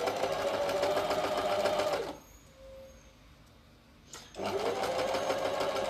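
Janome 523H electric sewing machine stitching a narrow rolled hem in two short runs. Each run starts with the motor speeding up to a steady, rapid needle rhythm. The two runs are separated by a pause of about two seconds.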